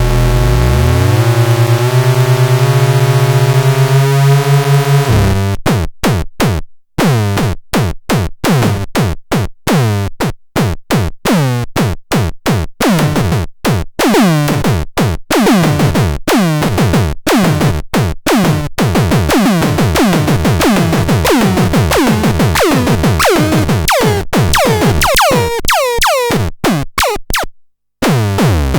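Electronic synthesizer tones from a Bum Tron Mini sound demo. Held, layered tones step up in pitch for about five seconds, then give way to a fast run of short notes, about three a second, each dropping in pitch, with brief gaps.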